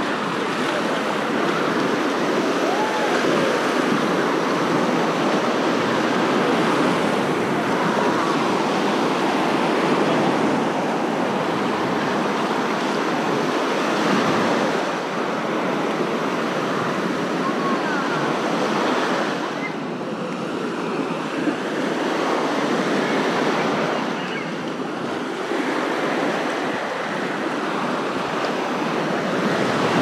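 Small waves breaking and washing up a sandy shore, a steady surf wash that swells and eases a little, with faint voices of people on the beach now and then.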